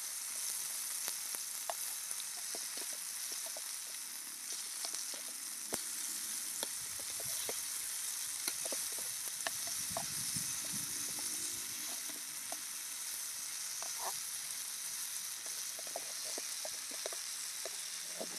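Murrel (snakehead) fish steaks shallow-frying in groundnut oil on a dosa griddle: a steady sizzle with scattered pops and crackles, and a metal spatula now and then scraping and turning the pieces. One side of the fish is cooked through and the steaks are frying on their other side.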